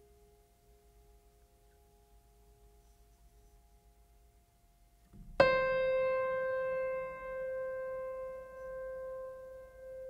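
Background music: a few near-quiet seconds with a faint fading tone, then a single piano-like keyboard note struck about five seconds in that rings on and slowly dies away.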